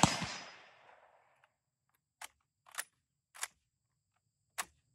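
The Mosin-Nagant M91/30 rifle's 7.62x54R shot echoes and dies away over the first second. Then come four sharp metallic clacks spread over the next few seconds as the stiff, sticky bolt is forced open and shut to chamber the next round.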